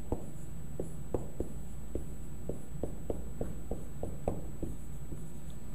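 Someone writing: a run of light, uneven taps and clicks, about three a second.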